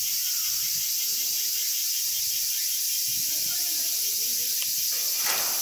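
Summer cicadas droning steadily and high-pitched in the background, a dense unbroken chorus of insect song.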